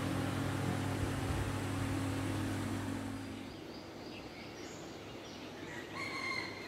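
A steady low hum over a hiss that stops about three and a half seconds in, leaving quieter open-air ambience. A few short bird chirps come near the end.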